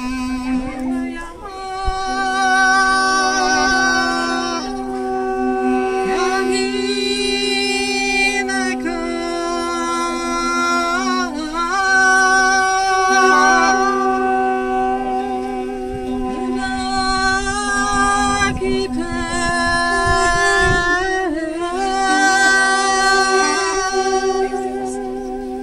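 An ensemble of Armenian duduks plays a slow, mournful melody over a steady held drone note, the dam. The drone breaks off briefly now and then for breath.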